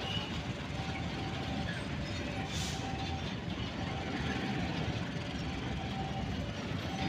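Empty fuel tank wagons of a freight train rolling past on the track, a steady rumble of wheels on rail with a faint whine that comes and goes. A brief hiss sounds about two and a half seconds in.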